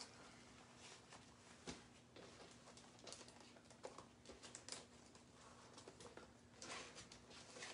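Near silence with faint scattered clicks and light taps of small craft supplies being handled.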